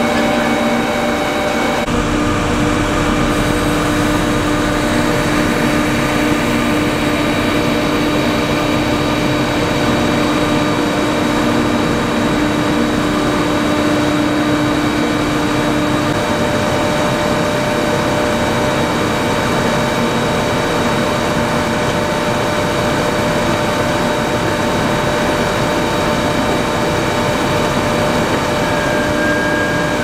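Heavy potato-harvesting machinery running steadily under load: diesel engine noise mixed with several steady humming tones from the machine's drives. The mix of tones changes abruptly about two seconds in.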